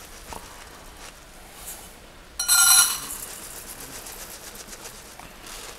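A glass jar of Arborio rice clinking against a metal measuring cup as rice is poured: one brief ringing clink about two and a half seconds in, over a faint steady hiss.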